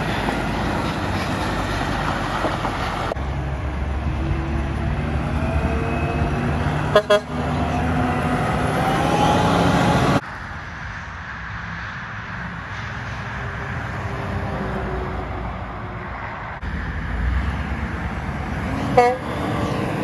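Heavy diesel trucks driving past: a Freightliner semi tractor, then cement mixer trucks. Two short horn toots sound, one about seven seconds in and one near the end.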